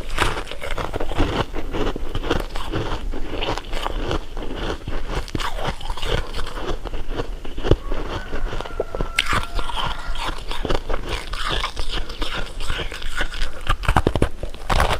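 Close-miked eating of candy: biting and chewing with a dense, irregular run of crunches and crackles.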